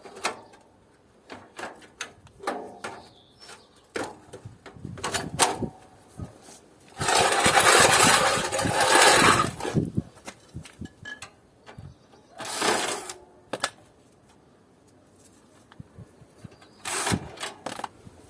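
Hand work on a scrap air conditioner's parts: scattered clicks and knocks, then a loud noisy burst lasting about three seconds near the middle, with two shorter bursts later.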